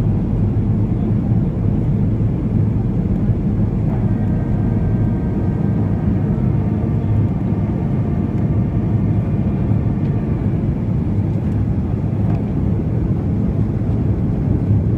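Boeing 737-800 with CFM56-7B engines, a steady, loud jet rumble. About four seconds in, faint whining tones join it and rise slightly in pitch.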